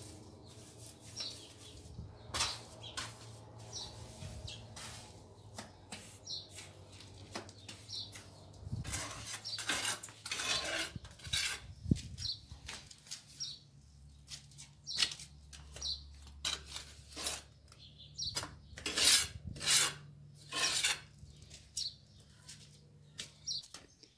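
A steel mason's trowel scraping and clinking against wet sand-and-cement mortar: a run of short, irregular scrapes and taps as mortar is scooped up and packed into a hole in a brick wall.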